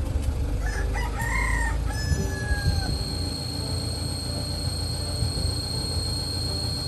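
A rooster crows once: two short notes, then a longer drawn-out falling note that ends about three seconds in, over a steady low rumble.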